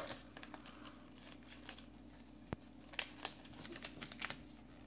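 Faint rustling and crinkling of a sheet of origami paper being handled and pressed into folds by hand, with a few soft ticks, the sharpest about two and a half seconds in.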